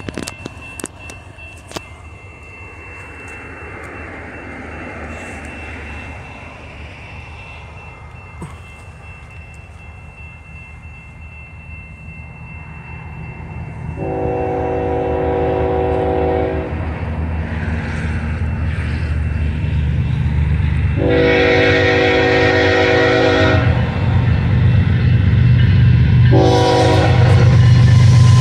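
BNSF diesel freight locomotive sounding its air horn as it approaches: two long blasts and then a short one, the opening of the standard grade-crossing warning pattern. Underneath is the rumble of the locomotives and train, which grows louder toward the end.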